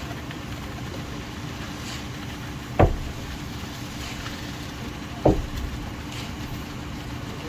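A heavy engine running steadily, broken by two loud knocks about two and a half seconds apart.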